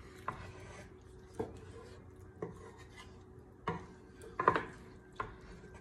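Wooden spoon stirring chunky chili in a square nonstick pan, with scattered light knocks and scrapes against the pan, the loudest cluster about four and a half seconds in.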